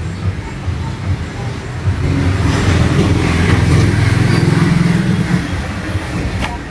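Royal household sewing machine driven by a belt from an electric motor, running and stitching with a fast, even clatter. It speeds up about two seconds in and eases off near the end, with a sharp click just before it stops. This is a test run after a repair of a machine that kept jamming.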